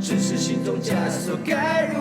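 Guitar-accompanied song: guitar chords sound throughout, and a voice comes in about a second and a half in, holding a wavering sung note.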